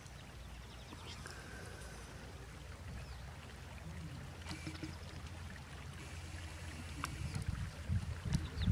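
Faint outdoor background: a low, uneven rumble with a few faint chirps and clicks.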